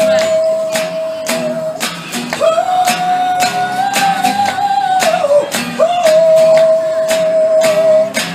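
Live street music: three long held melody notes with slight wavering, over a steady percussive beat, played in a gap between the blues singer's lines.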